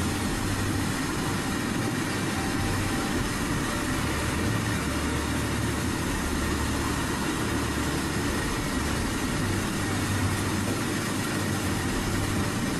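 Open freight wagons of the very long Indian Railways freight train 'Sheshnaag' rolling past, a steady noise of wheels on the rails with a fluctuating low rumble.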